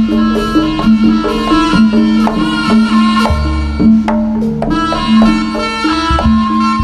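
Live Javanese jaranan music from a gamelan ensemble: struck metal keys repeating pitched notes over a steady pattern of drum strokes, with gongs and cymbals.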